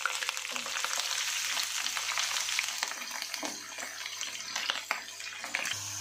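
Sliced garlic, ginger, green chillies and curry leaves sizzling and crackling in hot sesame oil in a nonstick frying pan, with a wooden spatula stirring them.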